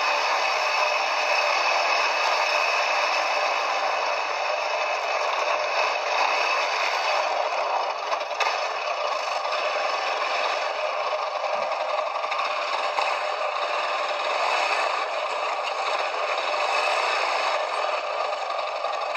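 Quad bike riding over a rough track: a steady rattling, scraping noise with no clear engine note.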